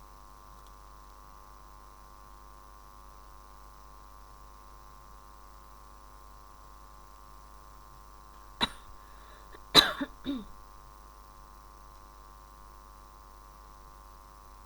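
A person coughing: three short coughs a little past halfway, the middle one loudest, over a steady electrical hum.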